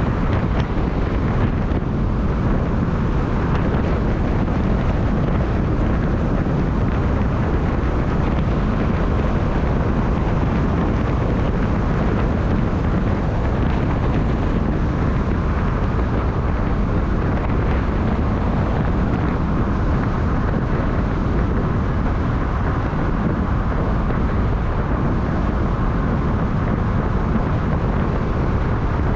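Steady rumble of a moving vehicle mixed with wind buffeting the microphone, constant throughout with no distinct events.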